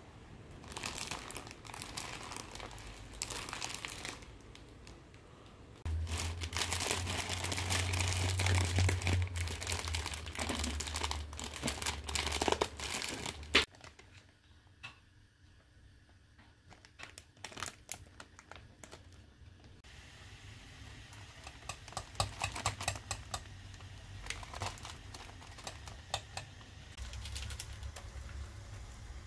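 Plastic instant-ramen packet crinkling and rustling as it is handled, in bursts with sharp crackles. A low hum runs under it from about six seconds in and stops at about fourteen seconds.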